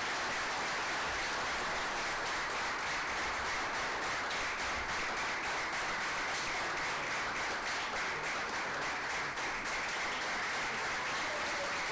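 Audience and councillors applauding: many hands clapping steadily, without a break.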